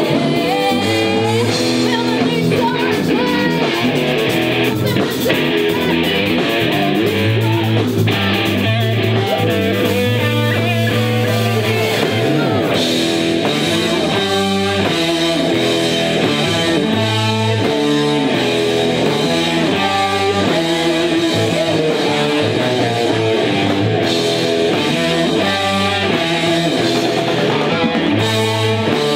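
A live rock band playing: amplified electric guitars over a drum kit, with women singing into microphones.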